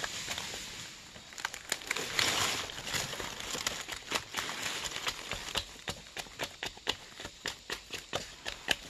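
Cassia cinnamon bark being peeled and prised off a felled trunk: irregular sharp cracks and snaps, with a longer tearing scrape about two seconds in.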